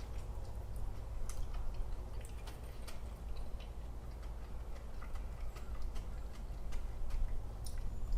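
A man chewing pizza with his mouth close to the microphone: irregular wet clicks and smacks from the mouth, over a low steady hum.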